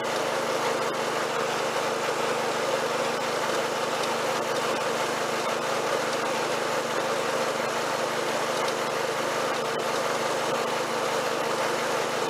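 Snapper rear-engine riding mower's engine running steadily as the mower drives along, with an even pitch and no change in speed.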